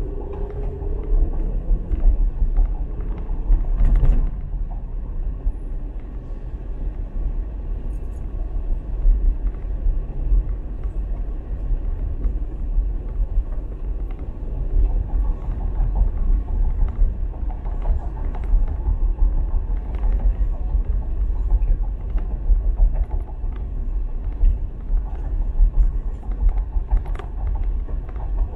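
Car driving on city streets: a steady low rumble of road and engine noise, with a few light clicks or knocks, the clearest about four seconds in.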